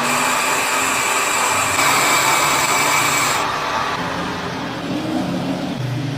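Electric power tool motor starting abruptly and running with a high whine and a rushing noise. The high whine drops away about three and a half seconds in, leaving a lower steady hum.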